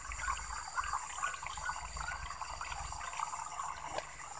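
Shallow swamp water splashing and trickling in small irregular sloshes as a mesh fish trap is lifted and a catfish handled over the water.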